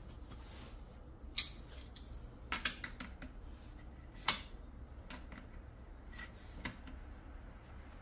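A few sharp metallic clicks and taps as channel-lock pliers grip and turn the threaded hose fitting on a small submersible pump, tightening the connection; the loudest click comes about four seconds in.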